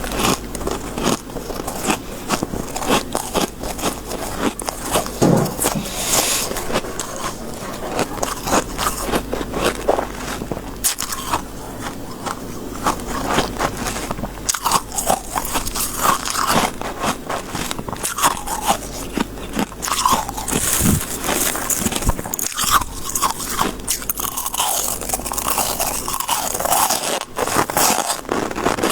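Close-miked biting and chewing of soft, snowy freezer-frost ice: a dense, irregular run of crunching and crackling.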